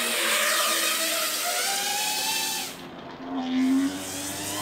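FPV racing quadcopter's electric motors and propellers whining with a hissing edge, the pitch sliding up and down with the throttle as it flies.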